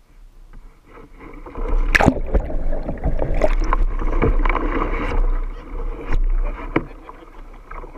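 Water splashing and sloshing around a whitewater kayak as it capsizes and is rolled back upright using hand paddles instead of a paddle. A sharp splash comes about two seconds in, several seconds of churning water follow, and the sound dies down near the end.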